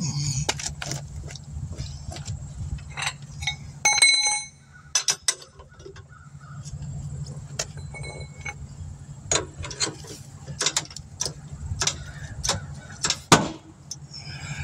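Metal tools and wheel hardware clinking and knocking in short irregular taps, with one ringing metallic clink about four seconds in, over a low steady hum.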